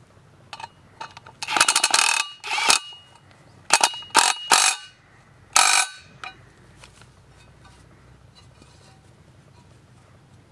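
Cordless Bosch power driver running in several short rattling bursts on the bolt that holds the mower blade to its steel blade-holder disc.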